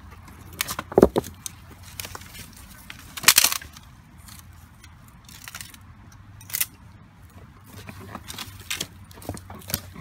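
Dry dead branches cracking and snapping as they are levered against a boulder to break them into firewood. The sound comes as a few sharp cracks, the loudest about one and three seconds in, with lighter knocks and rustles between.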